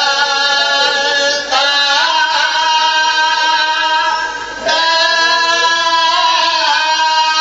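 A man's voice singing a slow Saraiki mourning lament in long, held, wavering notes, with a short break for breath about four and a half seconds in.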